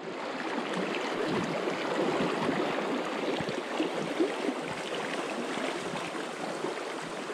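Shallow mountain creek running over rocks: a steady rush and ripple of water.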